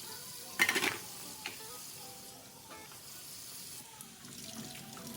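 Strawberries being rinsed in a plastic container at the sink: a short loud splashing clatter about half a second in, then a single click, with water hissing faintly and soft background music.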